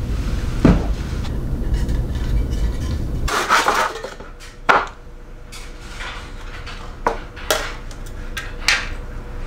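A low rumble for about the first three seconds that cuts off suddenly, then a handsaw cutting a board in a plastic miter box: faint scraping strokes broken by a handful of sharp clacks.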